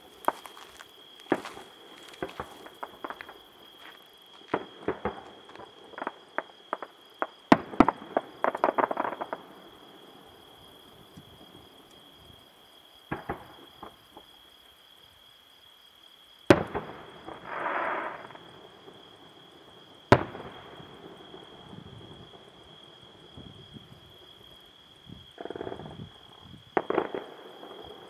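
Aerial fireworks bursting: many sharp bangs in quick succession over the first nine seconds, running into crackling, then two loud bangs about three and a half seconds apart near the middle, and more crackling near the end. A steady high insect trill, crickets, runs underneath.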